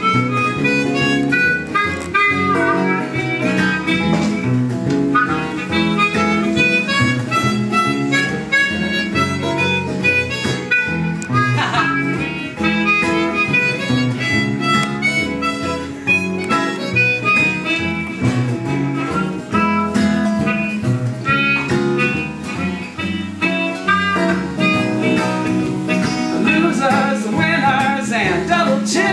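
Instrumental opening of a country-blues song, with harmonica playing over guitar and no singing yet.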